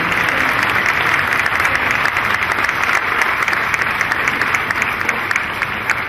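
Audience applauding, a dense steady clatter of many hands that begins to fade near the end.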